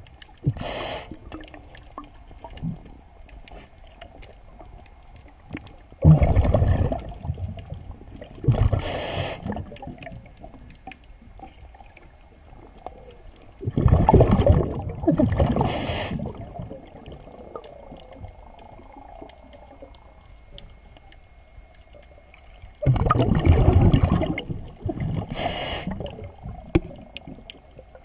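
A scuba diver breathing through a regulator underwater. A low gurgling rush of exhaled bubbles is followed a couple of seconds later by a short, higher hiss of inhaling, and the cycle repeats about every eight to nine seconds.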